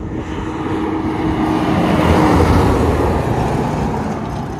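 Road train driving past at highway speed: engine and tyre rumble that builds to a peak about halfway through, as the multi-trailer rig goes by, then fades away.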